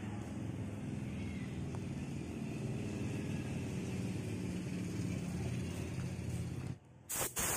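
A steady low mechanical hum with a rumble, which cuts off near the end. A loud, even hiss of compressed air then starts: a spray gun blowing.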